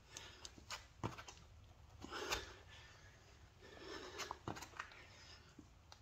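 Hard breathing from exercise, with two long puffs of breath about two and four seconds in. A few light taps and thumps come as hands and feet land on the exercise mat during a burpee.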